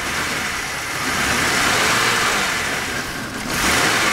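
2006 Buick Rendezvous V6 engine, running with its fuel shut off on gasoline vapor from a homemade vaporizer, revving up as the accelerator is held down. The revs sag about three seconds in, then rise again.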